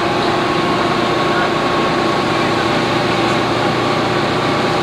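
Fishing boat engine running steadily: a constant drone with a few steady tones over a noisy hum.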